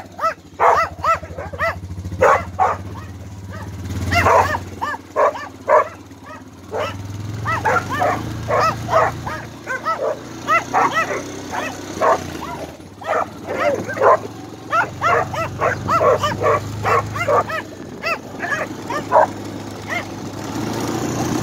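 A dog barking and yipping over and over, several barks a second, with a Honda four-wheeler's engine running low underneath.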